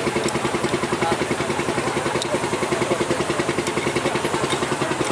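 Old steam engine running, its working parts keeping up a fast, even mechanical beat.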